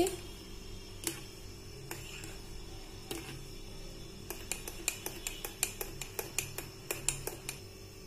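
Metal spoon clinking lightly against a ceramic coffee mug while stirring in milk: a few scattered clinks, then a quicker run of about three a second in the second half.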